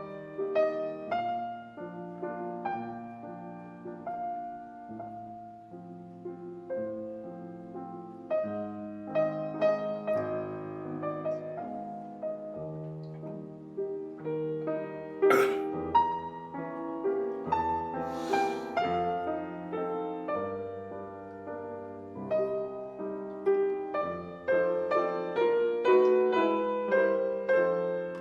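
Background piano music, a gentle melody of held notes, with a sharp crack about halfway through and a brief hiss a few seconds after it.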